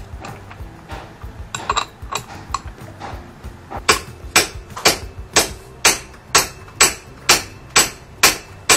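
Light clicks and knocks of tools, then from a few seconds in a steady run of sharp hammer blows on metal, about two a second.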